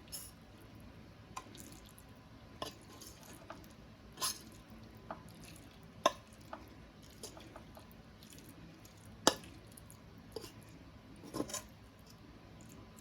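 Mac and cheese being scooped into a bowl of coleslaw: scattered soft wet squishes and plops with sharp clicks against the bowl, the two sharpest clicks about six and nine seconds in.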